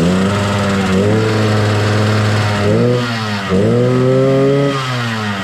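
Yamaha RX-King's single-cylinder two-stroke engine being revved: the revs rise and fall in several throttle blips and are held steady in between, then drop near the end.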